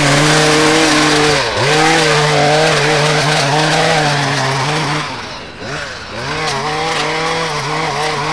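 Two-stroke gas string trimmer running at high revs while edging grass along a sidewalk. The engine eases off briefly about a second and a half in, then drops away for about a second past the middle before revving back up.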